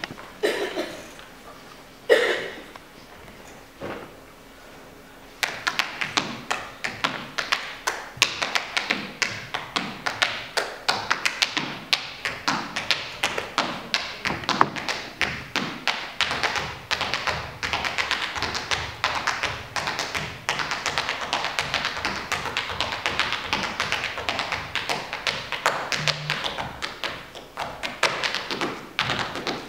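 Tap shoes striking a stage floor: a solo tap dancer's rapid, rhythmic taps, dense and continuous from about five seconds in, after a few scattered sounds at the start.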